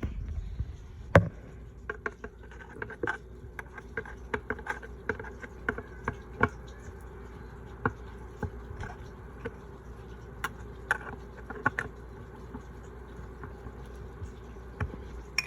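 Irregular small clicks, taps and scrapes of a plastic smoke alarm being worked onto its mounting bracket with a hand tool, one sharper knock about a second in, over a steady low hum.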